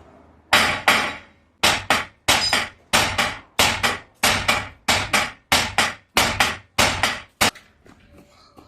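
Sledgehammer blows on the end of a Mercedes drive axle, trying to drive the shaft out of the wheel hub at the outer CV joint. There are about a dozen heavy metal strikes at a steady pace, each with a quick second hit, and they stop near the end. The shaft is seized in the hub and does not move.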